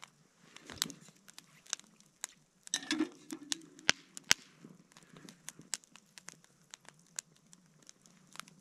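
Wood burning in a Swedish fire log, crackling with sharp, irregular snaps, and a short scraping rustle about three seconds in.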